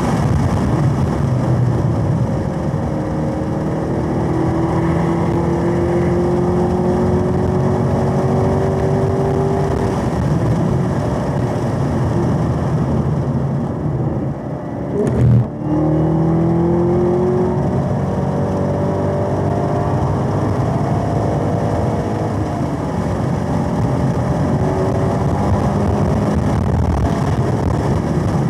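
Supercharged 6.2-litre V8 of a Camaro ZL1 1LE heard from inside the car under hard track driving, its pitch rising as it pulls through the gears. About halfway there is a short drop in level and a single sharp thump. After that the engine pulls again in 4th gear with rising pitch.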